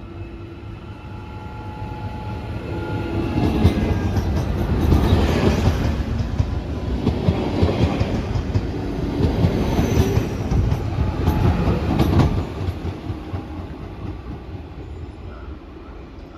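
A train passing close by: the sound builds over the first few seconds, runs loud for several seconds with a few sharp knocks from the wheels, then fades away near the end.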